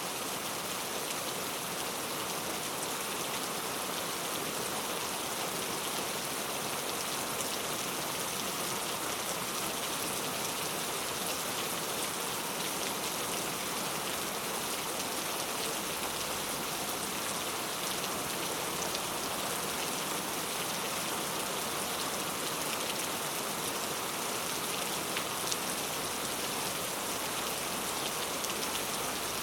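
Steady rain falling, with a dense patter of drops hitting a surface and no let-up in intensity.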